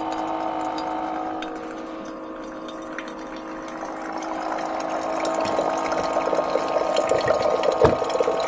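Tap water running into a collapsible electric kettle, filling it, over the steady hum of the camper's water pump; the sound grows louder as the kettle fills and cuts off abruptly near the end when the tap is shut.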